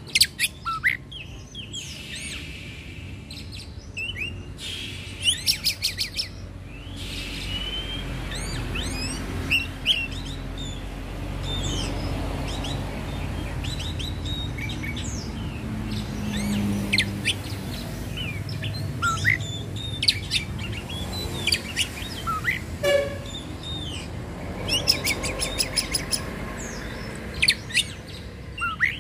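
Oriental magpie-robin singing in full voice: a varied song of loud whistled notes and slurred phrases, broken twice by rapid rattling trills, about five seconds in and again near the end.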